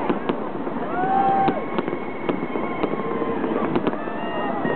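Aerial fireworks exploding overhead: about ten sharp bangs at uneven intervals.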